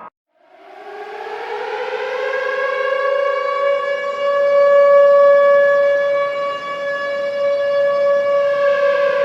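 Ballpark home run siren, an air-raid style siren, winding up from about half a second in, holding a steady wail, and starting to wind down near the end.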